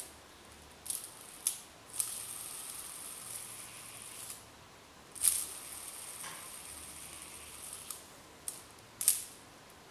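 Plastic fidget spinner flicked by a finger several times, each flick a sharp click; twice it keeps spinning for a few seconds with a faint steady whir from its bearing.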